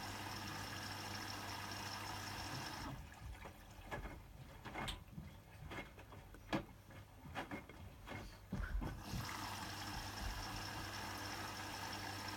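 Hotpoint WMFUG 942 washing machine in its wash phase: the drum motor runs with a steady hum, stops about three seconds in, and the drum rests for about six seconds. Through the pause, water and wet laundry slosh and knock inside the drum. The motor starts again near the end.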